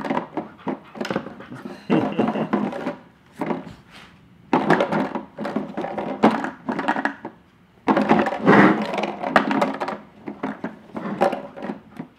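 Plastic drink bottles clattering, crinkling and knocking against a plywood frame as a husky puppy noses and bites them, spinning them on their wooden dowel. The noise comes in several irregular bouts.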